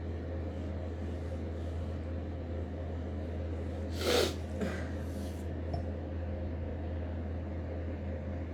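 A woman's short throaty vocal burst about four seconds in, falling in pitch, with a smaller one just after, over a steady low hum.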